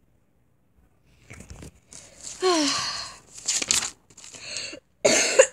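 Paper pages of a spiral-bound sketchbook rustling and crinkling as they are handled and turned, in several noisy bursts starting about a second in, with a brief falling tone about halfway.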